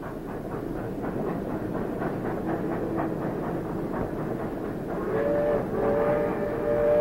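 Steam freight train running, a steady rumble with the clatter of wheels over rail joints. Near the end its steam whistle blows a steady chord, with one short break.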